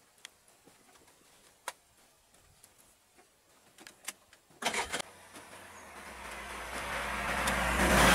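A road vehicle passing close by, its engine hum and tyre noise swelling to a peak at the end, with a brief burst of noise about halfway through.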